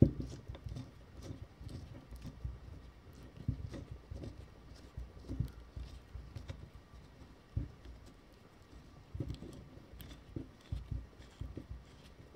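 Faint, irregular small clicks and soft knocks of steel parts being handled as a bearing cone with caged balls is screwed by hand along the threaded axle of a 1920s NSU bicycle hub driver and into its bearing.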